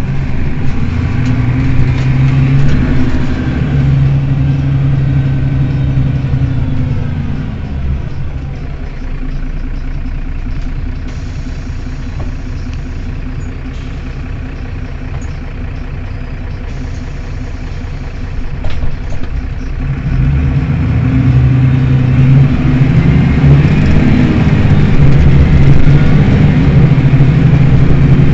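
Mercedes-Benz Citaro city bus's rear engine running with the bus standing still. Its note is loud for the first few seconds, drops back and stays lower through the middle, then rises and grows louder again from about two-thirds of the way in.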